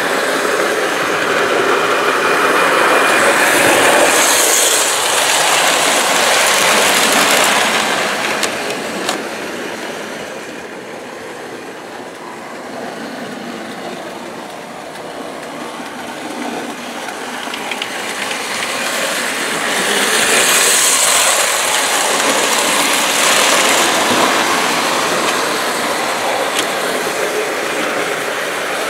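Lionel O gauge electric model train running on three-rail metal track: a steady whirring rattle of motor and wheels that swells as the train passes close, fades for several seconds as it goes round the far side of the layout, then swells again.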